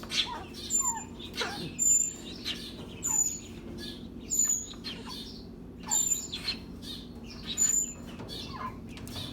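Captive birds calling: short high chirps repeat about once a second, mixed with falling calls, over a steady low hum.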